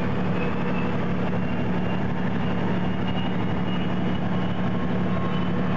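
Steady engine and road drone of a moving motor vehicle, heard from inside, with a strong low hum that holds even throughout.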